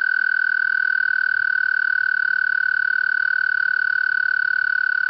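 A frog singing one long, even trill at a single high pitch, held steady without a break.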